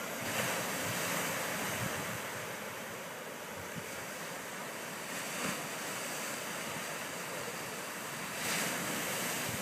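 Ocean surf washing onto a sandy beach, a steady rushing noise that swells a few times as waves break, with wind on the microphone.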